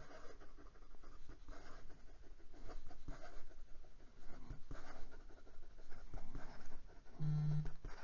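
Fine steel nib of a Penbbs 491 fountain pen scratching across notebook paper in quick cursive strokes. A short low hum sounds near the end.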